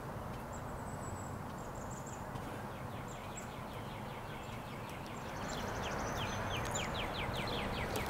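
Outdoor ambience of steady low background noise with birds chirping; a bird gives a fast run of short falling chirps, several a second, which grows louder in the second half.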